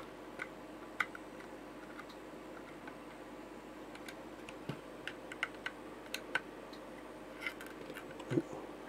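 Small screws being driven into a 3D-printed plastic camera case with a precision screwdriver: scattered light clicks and ticks of the driver and the plastic being handled, with a soft knock near the end.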